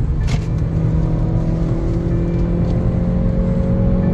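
BMW car engine pulling under acceleration, heard from inside the cabin over road rumble, its note rising slowly and steadily.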